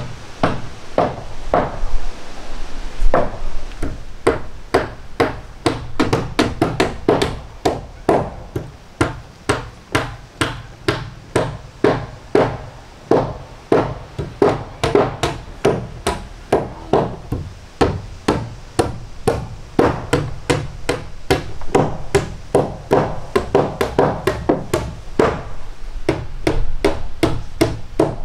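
Hammers driving nails into wooden roof boarding and battens: a steady run of sharp blows, about two to three a second.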